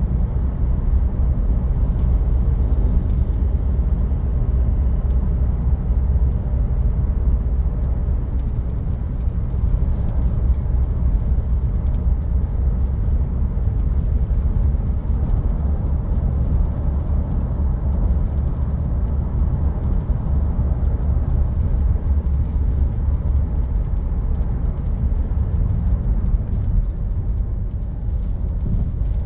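Steady low rumble of a Land Rover Discovery Sport being driven: engine and road noise at a constant pace, with no change in speed or revving.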